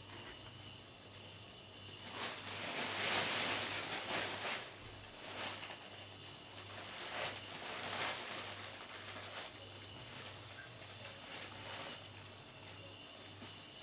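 Rustling and scuffling from a cat moving about inside a fabric play tunnel, in irregular bursts that are loudest a few seconds in and come and go after that.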